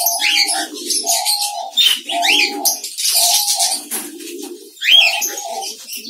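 Diamond doves cooing over and over, short even coos at two pitches, a higher note trading with a lower one. Three short rising high chirps come through about a third of a second, two seconds and five seconds in.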